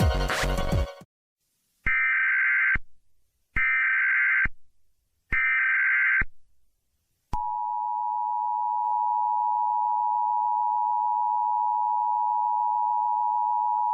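Music cuts off about a second in. Then come three short, identical bursts of Emergency Alert System SAME header data, a warbling digital screech. From about seven seconds in, the steady two-tone EAS attention signal sounds, which announces an emergency alert message.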